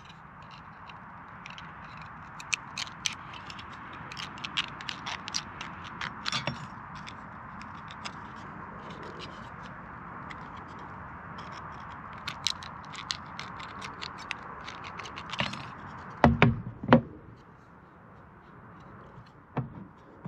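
Tin snips cutting thin sheet metal from a tin can: a run of sharp snips and clicks, then a few loud knocks on the wooden board near the end as the snips are set down.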